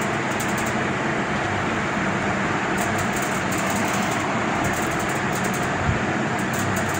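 Steady background hum and hiss, with a few faint light clicks and taps as a replacement CRT TV flyback transformer is handled and fitted against the holes of its circuit board.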